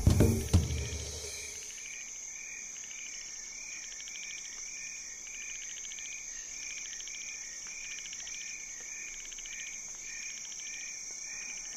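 Rainforest ambience of calling insects and frogs: a steady high buzzing with a pulsing call repeating about twice a second. A music cue fades out in the first second or so.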